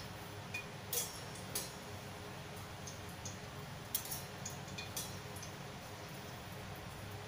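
A few sharp, irregular clicks and clinks of kitchen utensils and dishes being handled, over a steady low hum.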